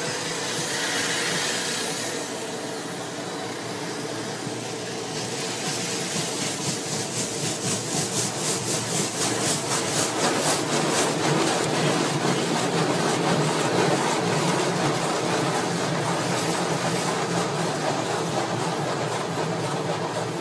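Automatic car wash running: a steady rush of spray and machinery, with a fast, even swishing beat from about six seconds in that fades back into the steady noise.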